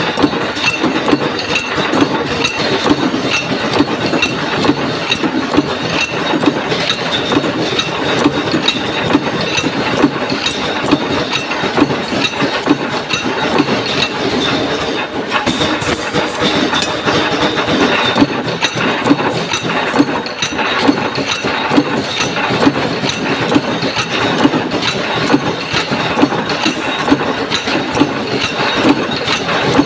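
Punch press running continuously, stamping out metal ring plates: a loud, dense mechanical clatter with sharper strikes at fairly even intervals.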